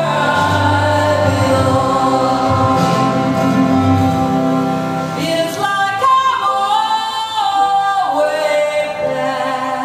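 A song: singing voices holding long notes over instrumental accompaniment.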